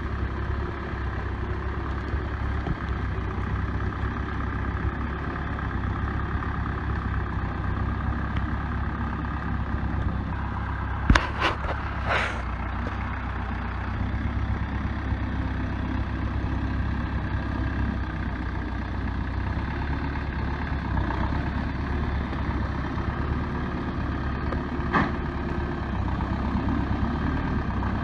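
Four-cylinder diesel engine of a Case 580B backhoe running steadily as the machine creeps downhill, with a sharp knock about eleven seconds in, another a second later, and a lighter one near the end.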